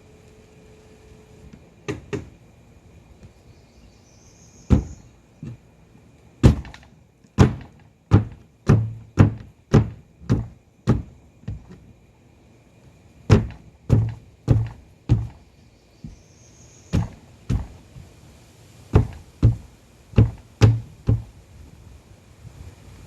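Repeated sharp knocks, most likely hammering on the wooden floor. They come in runs of several blows at about two a second, with short pauses between runs.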